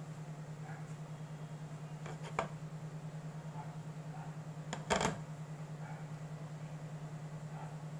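Steady low hum from the electric ceramic cooktop, with two clanks of the stainless steel saucepan being shifted on the glass top, the second louder, as the butter melts.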